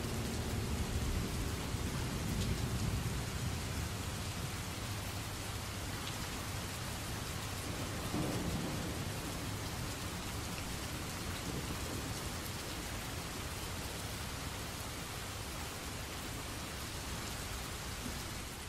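Rain-and-thunder ambience: a steady hiss over a low rumble, swelling slightly about eight seconds in.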